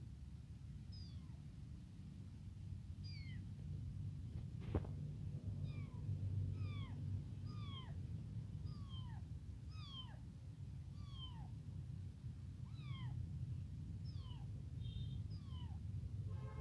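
Tiny kitten meowing over and over, a quick string of short high cries, each falling in pitch; the uploader takes it for an abandoned kitten calling for its mother because it is hungry. A single sharp tap about five seconds in.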